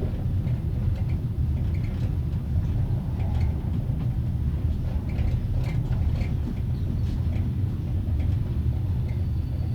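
Passenger compartment carriage heard from inside a closed compartment while moving slowly: a steady low rumble with scattered light creaks and clicks from the carriage body.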